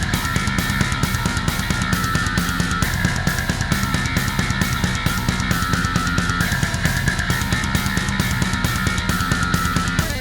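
Heavy metal music: a Dingwall Afterburner electric bass played through a Darkglass Exponent 500 bass amp over a backing track with a steady drum beat.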